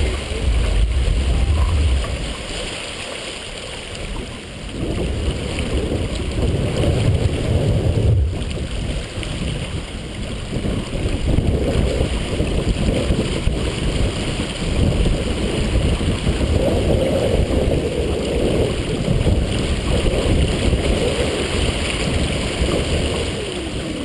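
Strong wind buffeting the microphone over water rushing and splashing along a sailboat's hull as it sails hard through chop, the level surging up and down.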